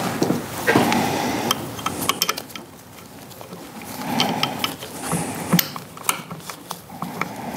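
Scattered small metal clicks and light knocks as the power steering and vacuum pump assembly is handled and its bolts worked, mixed with rustling of glove, sleeve and shop towel.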